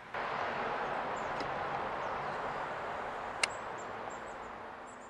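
A steady rushing hiss that starts suddenly, slowly fades, and has one sharp click partway through.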